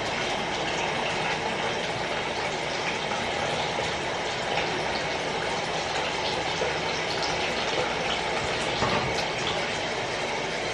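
A steady, even rushing noise with a few faint clicks and clinks.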